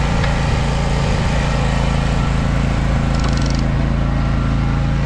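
John Deere Z530R zero-turn mower's engine running steadily at a constant speed.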